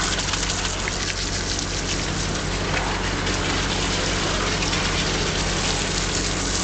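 Water spraying from a hose into a mortar pump mixer's filter tank, splashing into cement slurry, over the steady hum of the machine's motor.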